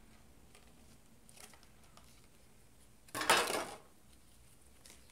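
Brief loud crinkle and clatter of a clear plastic packaging tray being set down on a wooden table, about three seconds in, with faint handling rustles before it and a small click near the end.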